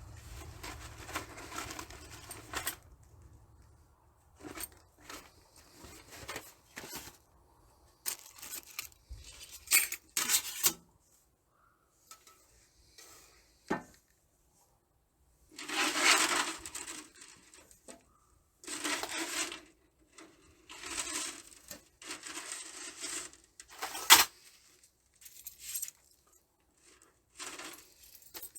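Thin titanium camp-stove parts and their packaging being handled: intermittent light metallic clinks and rustling, scraping bursts, with a few sharp clicks and stretches of quiet between them.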